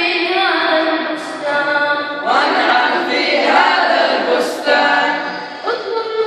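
Boys' voices singing an unaccompanied Arabic nasheed into microphones, with long held notes. From about two seconds in, several voices sing together and the sound grows fuller for a couple of seconds before a single line carries on.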